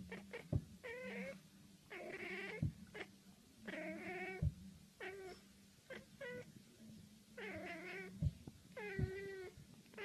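A cat meowing over and over, long drawn-out meows mixed with short ones, with a few sharp knocks between them.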